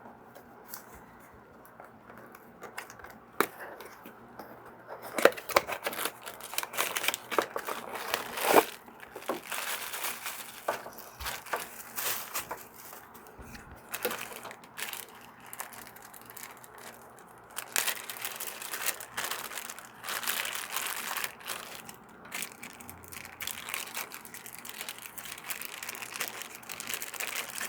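Plastic packaging crinkling and rustling, with scattered clicks and knocks, as a small hydroponic water pump is unpacked and handled.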